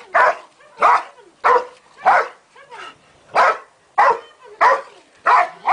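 A large black dog barking steadily, about one and a half sharp barks a second, around nine in all.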